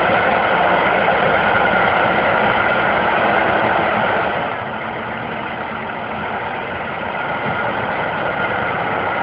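Fendt 412 Vario tractor's four-cylinder diesel engine running steadily. The sound drops in level about halfway through and then slowly builds again.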